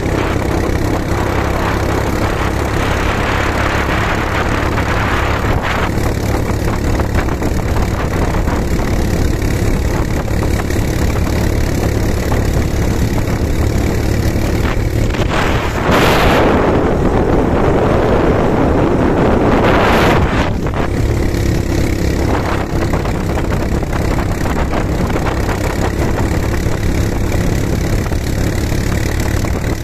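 ATV quad bike engine running steadily while riding along at speed. About halfway through, a louder rushing noise lasts for some four seconds.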